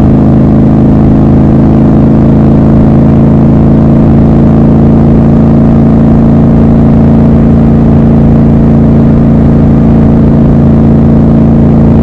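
Triumph Scrambler 1200 XC's 1200 cc parallel-twin engine and exhaust running at a steady speed while cruising, the note holding one pitch throughout.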